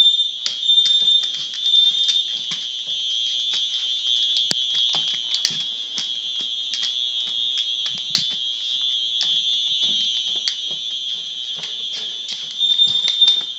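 Several household smoke alarms sounding together: a continuous high-pitched alarm tone with another alarm's short repeated beeps overlapping it near the start and end. Scattered knocks and clicks run through it.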